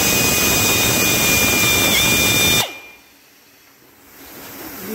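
Pneumatic air-motor drill running at speed: a loud rush of air with a steady high whine, which dips briefly about two seconds in and then cuts off suddenly. A softer hiss builds near the end.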